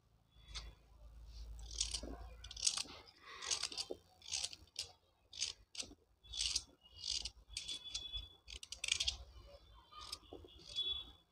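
Kitchen knife cutting chunks off a raw carrot held in the hand, about a dozen crisp crunching cuts at roughly one a second, with a few light clicks.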